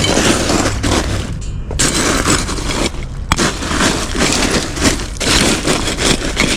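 Ice cubes crunching and shifting as beer is pushed down into a bag of ice, in a series of rough, grinding scrapes.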